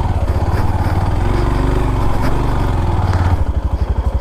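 Motorcycle engine running. About three and a half seconds in, its low rumble changes to a slower, evenly pulsing beat.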